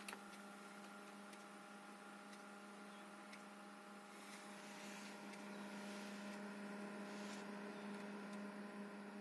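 Computer case fan running, a faint steady hum with an even tone and overtones that swells slightly about halfway through.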